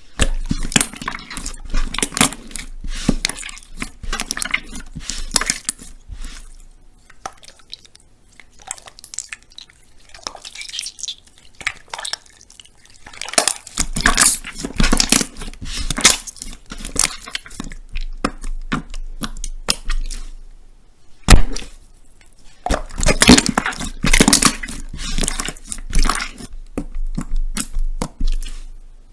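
Slime being squeezed and poked by hand: dense runs of small sticky clicks, crackles and pops, coming in spells with a quieter stretch in the middle.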